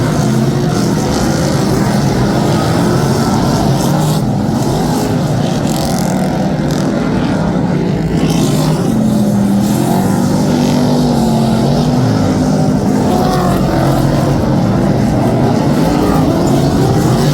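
A pack of superstock speedway race cars running hard, their V8 engines overlapping. Several engine notes rise and fall as the cars accelerate and lift off.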